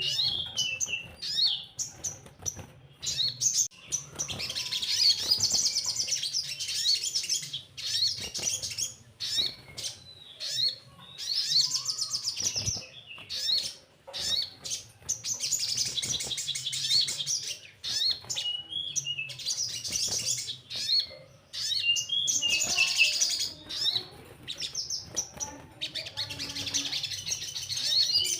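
Sogon, a small sunbird, singing in fast, high, chattering trills and twitters. The song comes in repeated phrases of a second or several, with short pauses between them. It is used as a lure call to set caged birds singing.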